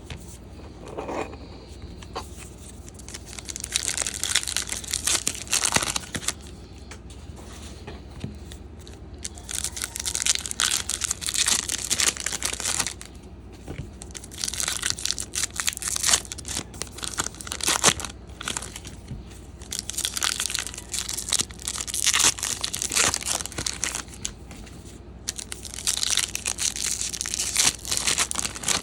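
Trading card packs and cards being handled at close range: bursts of crinkling, tearing and rustling from the wrappers and card stock, coming in stretches of a few seconds with short pauses between them.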